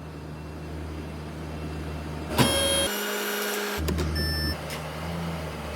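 Steady low hum of a car engine idling, with a click about two and a half seconds in and another about a second later.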